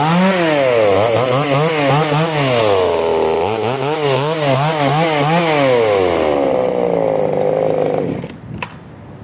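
Newwest 258 two-stroke top-handle chainsaw revved repeatedly in quick blips with the chain clear of the wood, then dropping back and shutting off about eight seconds in, followed by a single click.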